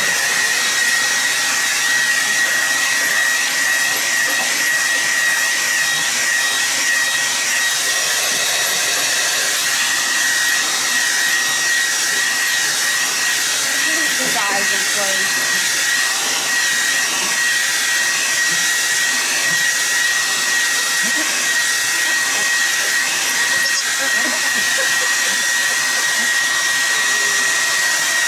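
Handheld hair dryer blowing steadily, a constant rush of air with a thin high whine from its motor.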